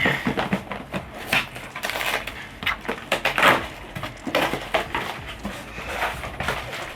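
Boxes and packaging being handled and opened: a dense, irregular run of crinkling, scraping and tearing crackles.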